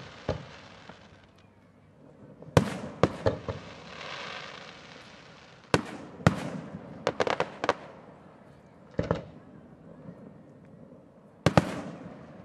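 Aerial fireworks shells bursting: about a dozen sharp bangs at uneven intervals, some coming in quick clusters, with a fast run of several about seven seconds in. Each bang is followed by an echo off the open water of the harbor.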